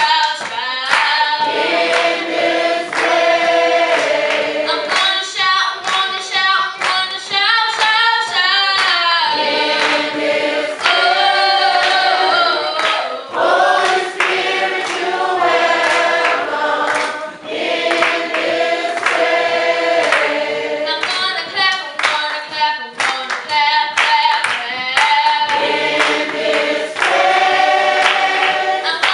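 Gospel choir singing, the voices holding long notes together in chords.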